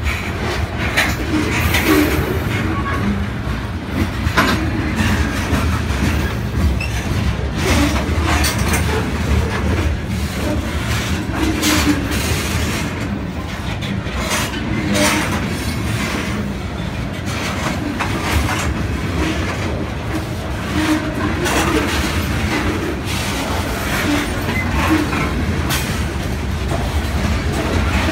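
Loaded-rail freight train of covered hopper cars rolling past at close range: a steady rumble of steel wheels on rail, broken by frequent irregular clicks and clanks as the wheel trucks pass.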